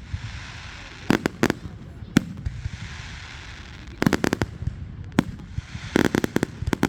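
Fireworks going off in quick volleys of sharp bangs, several in a row about a second in, around four seconds and again near the end, with a steady hiss between the volleys.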